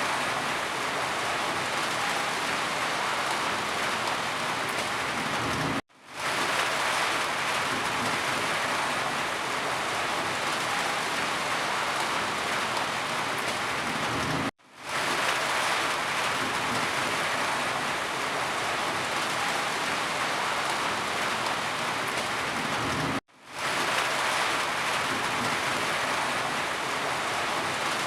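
Steady heavy rain falling on a surface, an even hiss of drops. It cuts out to silence for a split second three times, about every nine seconds, and fades back in each time.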